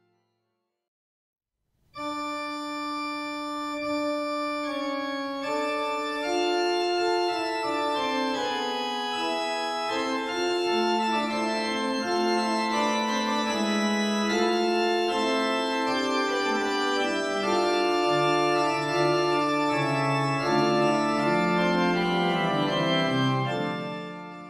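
Italian-style pipe organ sounding a principal chorus built as a sound pyramid: Principale 8', Ottava 4' and the split mixture ranks at 2', 1 1/3' and 1'. It plays held chords with moving inner lines. The music enters about two seconds in, grows fuller a few seconds later and fades out near the end.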